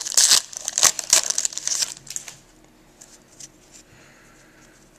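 Foil wrapper of a trading-card pack being torn open and crinkled for about two seconds, then faint ticks as the stack of cards is handled.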